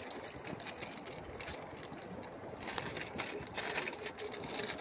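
Wind rushing on the microphone, with scattered sharp crackles and rustles that grow thicker over the second half.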